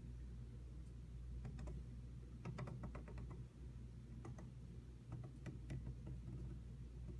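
Faint small clicks and ticks from the dial knob of a Heathkit IB-2A impedance bridge being turned by hand while tuning for the balance point, coming in a few short clusters. A low steady hum runs underneath.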